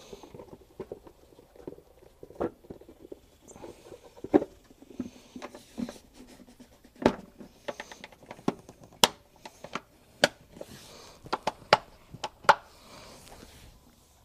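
Hard plastic air filter box cover of a Yamaha G29 golf cart being fitted and pressed into place by hand: a run of irregular clicks, taps and knocks, with the sharpest clicks in the second half.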